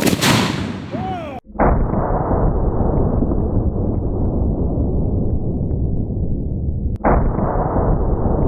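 A single blast from a Solothurn S-18/1000 20mm anti-tank rifle firing its 20x138mmB round, followed by a long, loud low rumble. The rumble breaks off abruptly twice and starts again each time.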